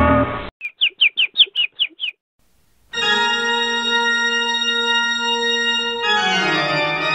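A loud noise burst dies away, then seven quick chirping sound effects, about five a second. About three seconds in, an organ starts a held chord, which slides down to a lower chord near the end.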